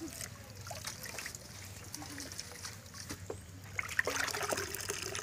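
Water trickling from a pipe into a large plastic tub. About four seconds in it grows louder with splashing as a plastic dipper is dunked into the tub to scoop water.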